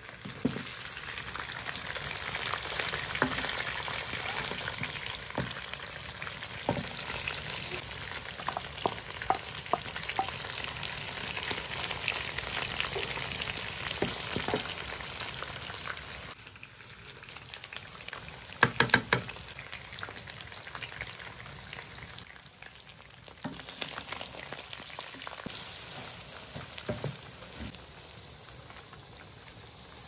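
Chicken pieces and onions sizzling as they fry in oil in a wok, stirred and scraped with a wooden spoon, with scattered knocks of the spoon against the pan. A short cluster of louder knocks comes a little past halfway, and the sizzle is quieter after that.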